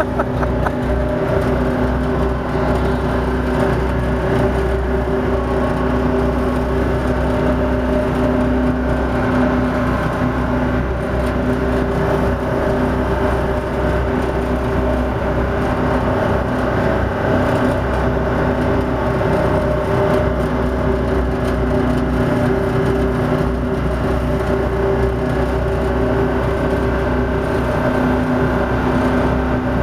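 Tugboat's diesel engine running hard at racing speed: a loud, constant drone with a deep rumble, over the rush of the churning wake alongside the hull.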